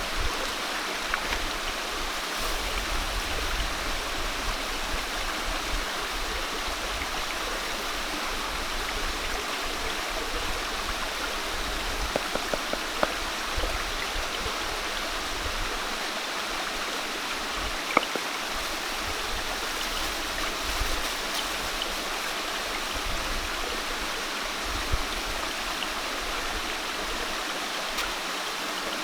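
Steady rush of running water, with a few faint sharp clicks, one about two-thirds of the way through.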